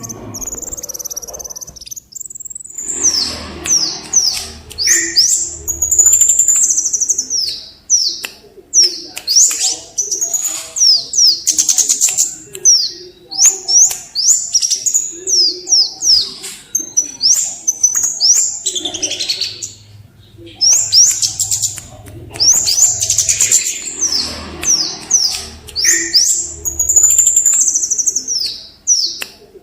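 A songbird singing a loud, fast song of high, quickly falling notes in rapid runs, pausing briefly twice.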